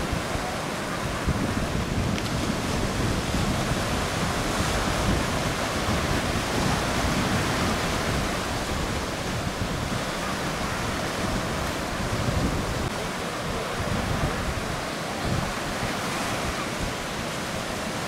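Rough sea surf breaking and washing in, a continuous rushing wash, with strong wind buffeting the microphone.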